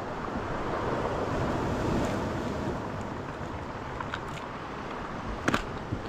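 Black Sea surf washing on the shore, a wave swelling about a second or two in, with wind on the microphone. A few light clicks near the end.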